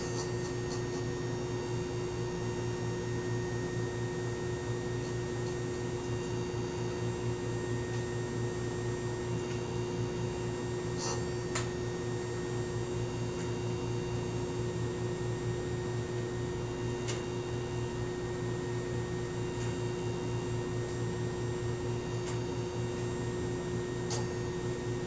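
Chicago Electric chainsaw sharpener's electric grinder motor running steadily with a constant hum, with a few brief ticks about eleven seconds in and again near the end, while it is set up to grind down the rakers (depth gauges) of a chainsaw chain.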